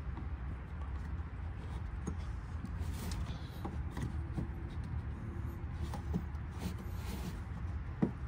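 Scattered small clicks and knocks as hands work the plastic retaining clips behind a fuel-filler door housing, over a low steady rumble.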